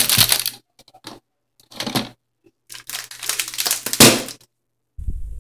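Thin clear plastic bag crinkling in several bursts as a muffin is worked out of it by hand; the longest bout of crinkling comes in the second half.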